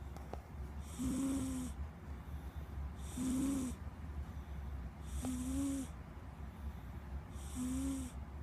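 A cat snoring: four slow breaths about two seconds apart, each a hissy snore carrying a low steady tone.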